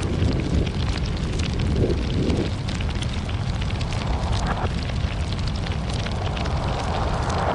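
Large fire burning: a steady low rumble of flames with scattered crackles and pops throughout.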